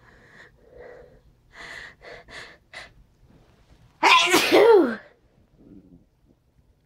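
A person sneezing: a few short, quick breaths build up, then one loud sneeze about four seconds in, lasting about a second, its voice sliding down in pitch.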